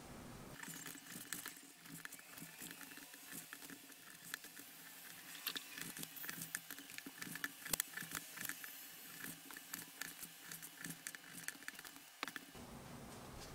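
Kitchen knife slicing raw chicken breast on a cutting board: soft, wet slicing with many irregular light taps of the blade on the board. It starts about half a second in and stops abruptly near the end.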